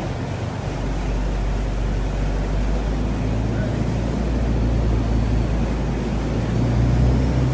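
A pilot boat's engine running steadily under way, a low hum that grows a little louder near the end, with water rushing along the hull.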